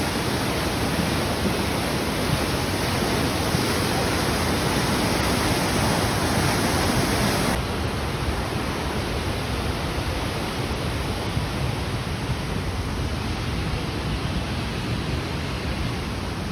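Fast-flowing brown floodwater rushing in a steady torrent. About halfway through it drops suddenly to a quieter, duller steady rush.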